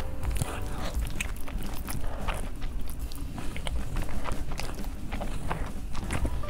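Close-miked eating sounds: wet chewing and slurping of noodles under melted cheese, a dense run of short, sticky mouth clicks.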